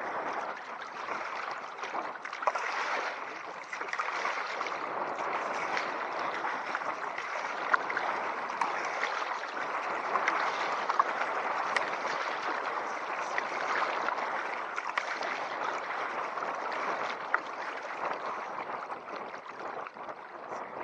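Steady rushing and splashing of churning tidal river water around a kayak, with a few sharp splashes or ticks now and then. The churn comes from a strong tidal eddy where a side river meets the main stream.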